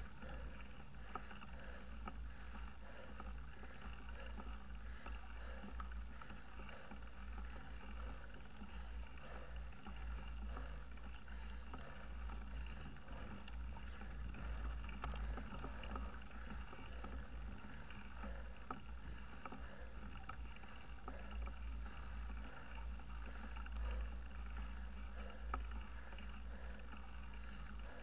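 Steady wind rumble and tyre-on-tarmac noise picked up by a camera riding on a mountain bike, with small scattered rattles and clicks from the bike.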